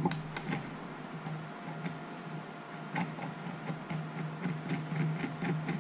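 Small metal parts handled on a glass tabletop while a little nut is fitted to a motorcycle turn-signal: a string of light, irregular clicks and taps, the loudest right at the start, over a steady low hum.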